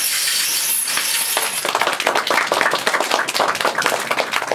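Audience applauding: a dense, irregular clatter of many hands clapping.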